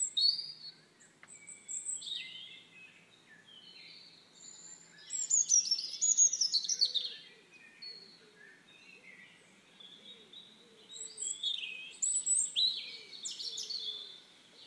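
Small birds chirping and twittering in bursts of quick, high, falling notes, busiest about five seconds in and again near the end.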